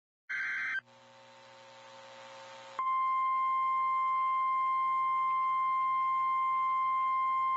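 A brief burst of radio noise, then hiss slowly growing louder, and about three seconds in the National Weather Service 1050 Hz warning alarm tone comes on: one loud, steady, high single tone that holds to the end.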